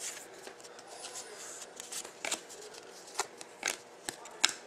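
Trading cards being flipped through by hand: the card stock slides and snaps with about half a dozen sharp clicks.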